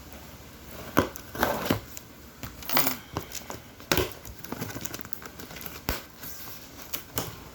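Plastic and cardboard packaging crinkling and rustling in short bursts, with several sharp clicks and knocks, as the contents of a product box are opened and pulled out.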